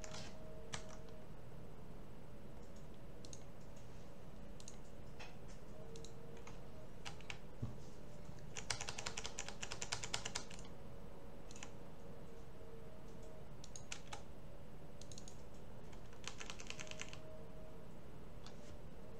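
Computer keyboard typing in two short bursts, about nine seconds in and again about sixteen seconds in, among scattered single mouse clicks, over a faint steady hum.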